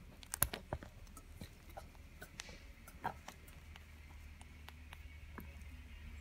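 Scattered small clicks and ticks from a dilute blue Pacific parrotlet preening its back and injured wing and shifting on a towel. The clicks are loudest about half a second in and again about three seconds in.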